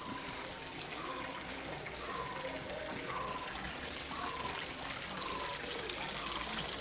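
Water pouring in a steady stream from a pipe spout in a brick wall and splashing onto the ground, growing a little louder near the end. A short call that falls in pitch repeats about once a second over it.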